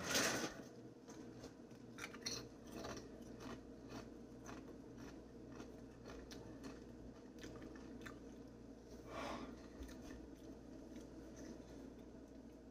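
Faint crunching of a chip being bitten and chewed: many short, irregular crunches.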